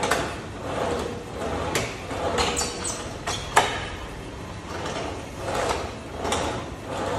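Ab coaster machine's knee carriage, loaded with a weight plate, sliding back and forth along its curved steel rails in repeated reps: a rolling, sliding noise about once a second, each stroke ending in a clack, with one sharper knock about three and a half seconds in.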